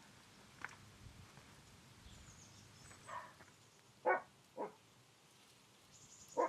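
A few short animal calls over faint outdoor background, the two loudest close together about four seconds in, with faint high bird chirps.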